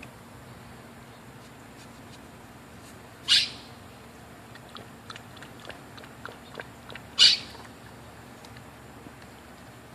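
Small black-and-tan puppy snorting sharply twice, about four seconds apart, with its nose down at the pool water. Faint light ticks in between.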